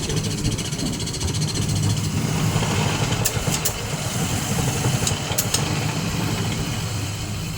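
Kerisik machine, a grinder for toasted grated coconut, running steadily with a low mechanical drone. Two pairs of sharp clicks come about three and five seconds in.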